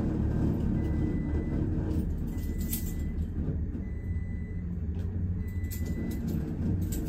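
Traction elevator car running, heard from inside the cab: a steady low rumble with a faint high whine that comes and goes, slowly getting quieter as the car slows to a stop. A few sharp clicks come about a third of the way in, near the middle and at the very end.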